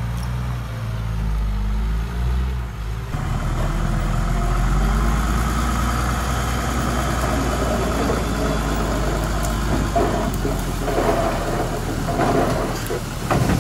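Heavy diesel engine of earthmoving machinery running. About three seconds in the sound changes abruptly to a louder, harsher engine run, with a few knocks near the end.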